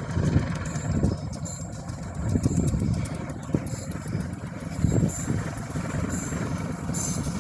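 Low, uneven rumble of passing road vehicles, swelling and fading irregularly, with no horn sounding.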